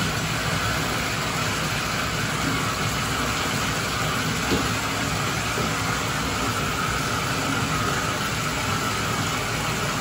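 Bathtub faucet running steadily into a partly filled tub, a constant rush of pouring water, with a faint knock about halfway through.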